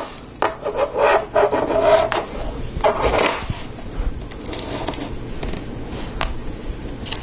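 Plastic Lego Technic parts being handled: a close run of clicks and rubbing as the outrigger arm with its gear rack is slid and set down, then quieter handling with a few single clicks as Technic pins are fitted.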